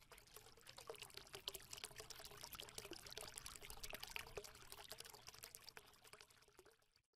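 Faint trickling, bubbling water sound made up of many tiny clicks and drips. It swells over the first second and dies away near the end.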